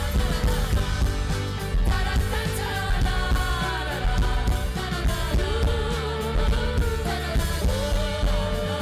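Live rock band playing loud: drums and bass under gliding lead lines and singing, the closing outro of the song. The band stops about a second after this.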